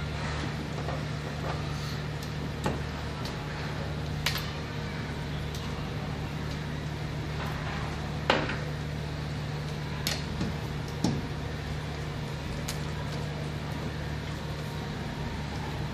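A rotary cam changeover switch and its wires being handled: a few scattered sharp clicks and taps, the loudest about eight seconds in, over a steady low hum.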